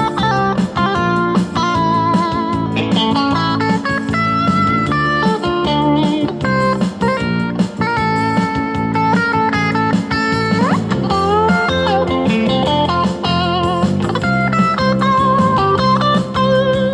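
Electric guitar music: a lead line of held notes with vibrato and string bends, with a sharp upward bend about ten seconds in.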